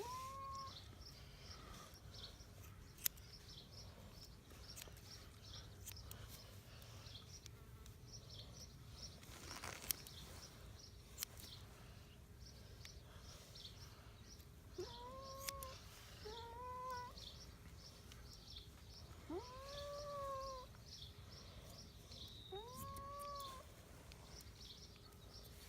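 A domestic cat meowing in long, drawn-out calls that rise and then fall, one faint at the start and four more in the second half, while being held for a haircut.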